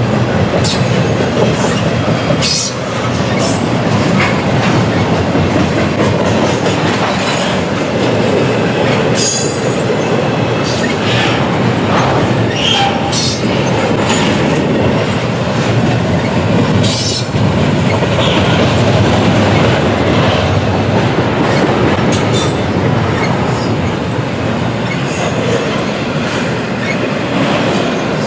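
Railroad cars rolling steadily past on the track, a continuous loud rumble with scattered brief high squeaks and clanks from the wheels.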